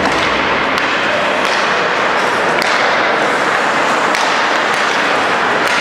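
Ice hockey game in play heard in the arena: a steady wash of arena noise, broken by several sharp clicks of sticks striking the puck.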